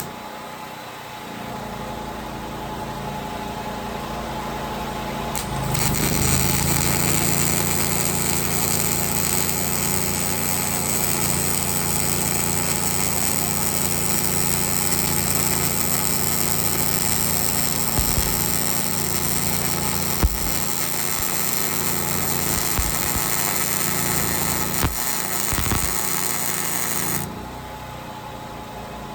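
Angle grinder grinding steel, a steady motor hum under a bright hiss. It runs lighter for the first few seconds, grows louder about five seconds in, and cuts off sharply near the end.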